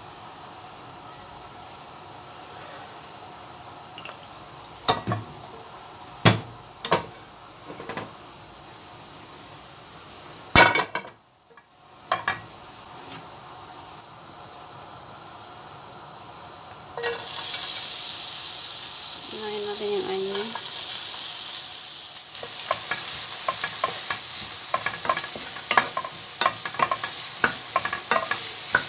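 A few sharp clicks and knocks, then chopped onion hitting hot oil in a nonstick frying pan: a loud sizzle starts suddenly about two-thirds of the way in and keeps going, with quick scraping ticks as a wooden spatula stirs the onion.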